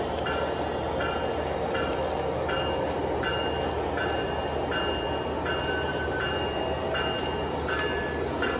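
O gauge model trains running on the layout track: a steady rumble of wheels and motors, with a short ringing tone that repeats a little faster than once a second.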